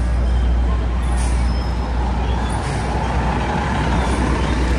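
City street traffic, with the engine of a heavy vehicle rumbling steadily underneath.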